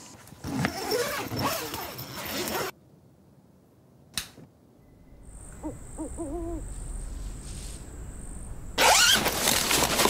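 An owl hooting: a short run of wavering hoots about halfway through, over a faint steady high whine.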